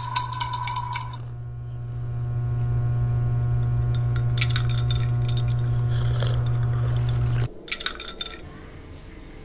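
A steady low droning tone with faint higher overtones. It swells over the first few seconds, holds, then cuts off abruptly about seven and a half seconds in, with a few soft clicks over it.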